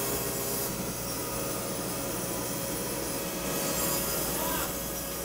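Optical lens generator running, its diamond wheel grinding a curve into the inside surface of a glass lens blank under coolant spray: a steady whirring grind. A louder hiss comes at the start and again about three and a half seconds in.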